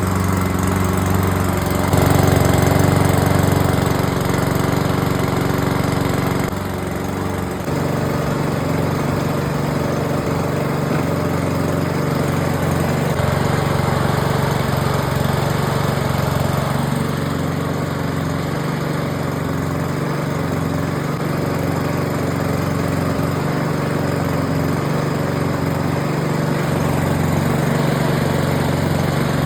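KK-LMP-6419 petrol lawn mower's small engine running steadily, with a brief dip in level about seven seconds in.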